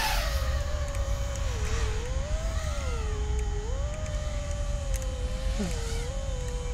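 Motors and propellers of a 5-inch FPV quadcopter, an iFlight Nazgul5 HD on 4S, whining steadily as it flies, the pitch rising and falling with throttle. A low rumble runs underneath.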